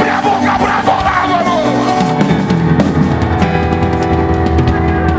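Loud live worship-band music with drums, electric guitar and bass guitar. A wavering line rises over the music in the first couple of seconds.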